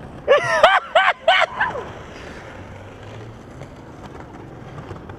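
A man yelling about four short, loud shouts in quick succession, rising and falling in pitch, over about a second and a half.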